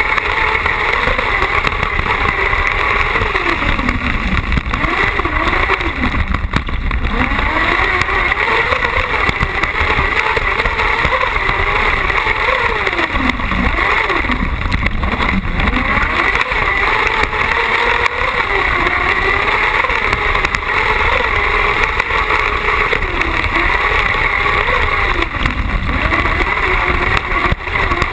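Carcross buggy's engine heard from a camera mounted on the car, revving up and down repeatedly as it is driven hard round a dirt track, its pitch rising and falling every second or two.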